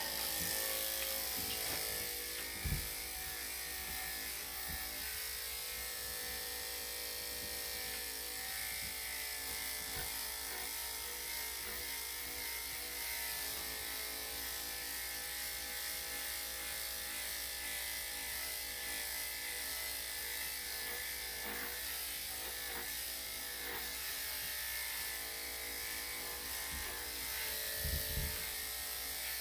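Electric dog-grooming clippers running steadily while shaving a poodle-cross's coat, with a couple of soft knocks, one about three seconds in and one near the end.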